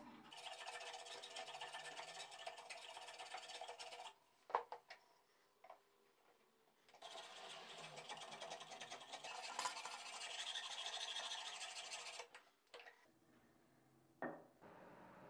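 Metal hand plane shaving a wooden mandolin neck blank: two long spells of rasping strokes, the second starting after a pause of about three seconds. A few sharp knocks fall in the pause and after the second spell.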